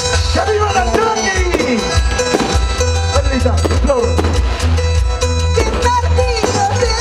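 Live folk band music: a steady pounding bass beat with drums and a gliding melody line.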